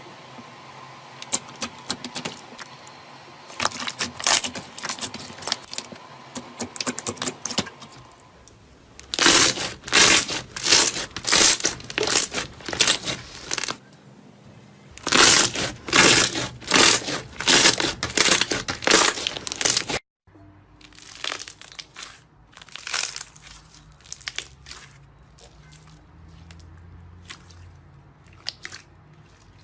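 Slime being squeezed and stretched by hand, giving rapid crackling and tearing pops in two loud spells, then softer, sparser pops after an abrupt break about two-thirds of the way through.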